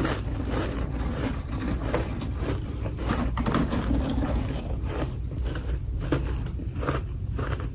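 Freezer frost ice being chewed, with irregular crisp crunches over a steady low hum.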